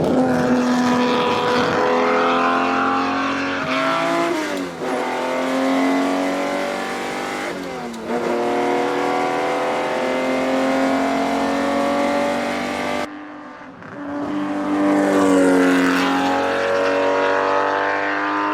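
Ferrari 250 GTO's V12 engine accelerating hard through the gears. Its pitch climbs and then drops sharply at each upshift. The sound breaks off briefly about thirteen seconds in, then climbs again.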